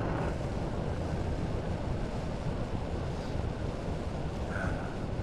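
Honda Forza 350 scooter cruising: steady wind rush over the microphone, mixed with engine and road noise.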